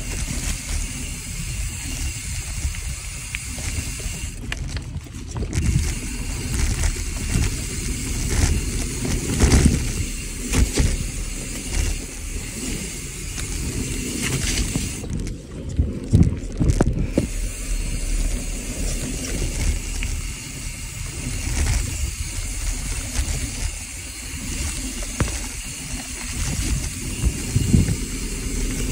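Mountain bike descending a dirt singletrack, heard from the handlebars: tyres rolling over dirt and leaves, with wind buffeting the microphone. The bike knocks and rattles over bumps now and then.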